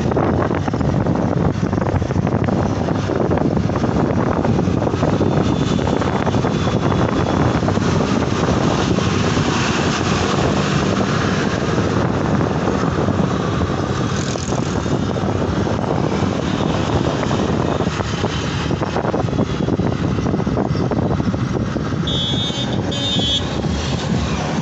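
Steady road and wind noise from riding in an open electric rickshaw, with traffic around it. Two short high-pitched beeps sound near the end.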